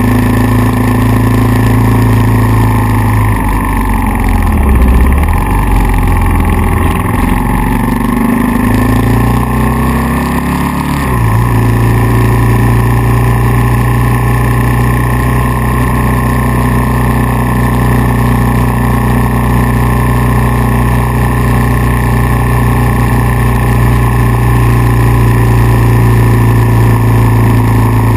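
Kawasaki KLR650's single-cylinder four-stroke engine running steadily. Between about 4 and 11 seconds in, the revs drop and climb back, then settle to a steady note again.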